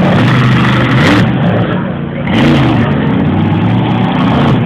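Monster truck engine revving hard, its pitch repeatedly climbing and dropping, with harsher surges of noise about a second in and again just past two seconds.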